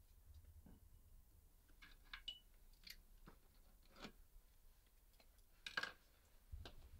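Faint rustles and light knocks of someone moving in bed and handling things on a bedside table, over a low hum. The loudest rustle comes near six seconds in, as he gets up.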